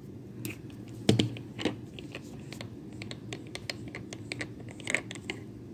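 Scattered light clicks and taps of a cologne bottle and its packaging being handled, the sharpest about a second in, over a faint steady low hum.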